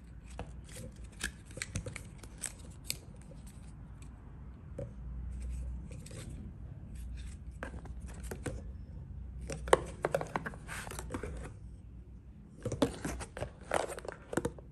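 Hands handling plastic air-pump nozzle adapters and a cardboard box: irregular clicks and rustling, with louder bursts of rustling about ten seconds in and again near the end.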